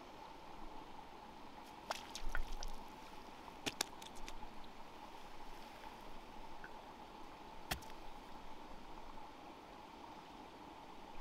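Wet squishing and dripping sounds, with a few sharp clicks about two, four and eight seconds in, over a steady background hiss.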